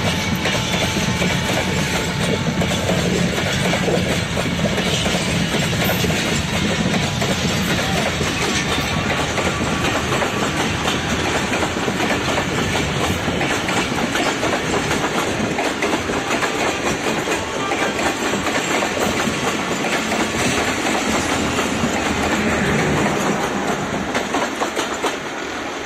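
Passenger train coaches passing close by, their steel wheels clattering over the rail joints in a continuous clickety-clack. The noise drops as the last coach goes by near the end.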